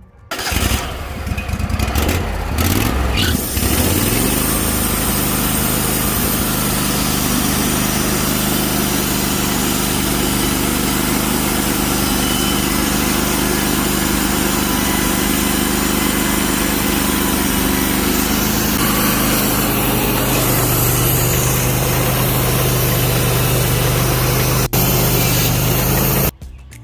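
Band sawmill's engine speeding up and its band blade cutting through a wet redwood log, running steadily for about 25 seconds, then cutting off suddenly near the end.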